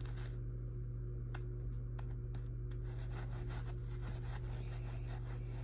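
Scattered small clicks and scratching as slime is scraped and scrubbed out of carpet, over a steady low hum.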